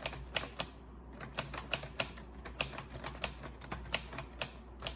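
Typewriter keys being typed, sharp clicks at an uneven pace of about three a second.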